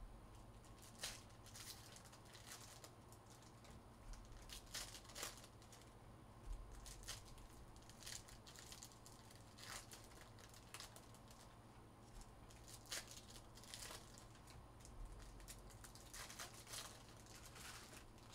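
Faint, irregular crinkling and tearing of foil trading-card pack wrappers being opened by hand, with small clicks of cards being handled and stacked.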